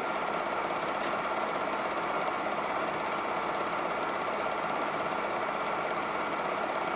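Super 8 film projector running, a steady, fast mechanical clatter from its film transport.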